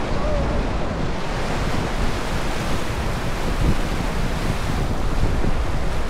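Whitewater of a Class III river rapid rushing and churning around a raft in a steady, loud wash of water noise, with wind buffeting the microphone.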